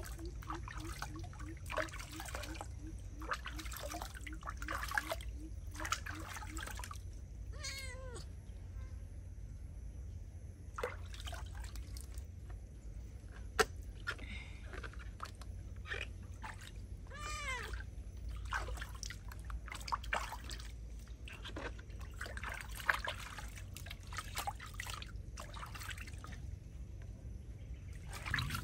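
Water splashing and trickling in a plastic basin as a wet tabby cat is bathed, with the cat letting out short meows now and then.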